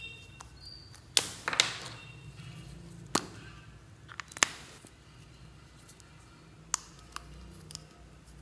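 Small plastic glitter tubes clicking and tapping: a string of sharp plastic clicks as caps are snapped off and tubes are handled, with a brief rattle of glitter after the loudest clicks about a second in.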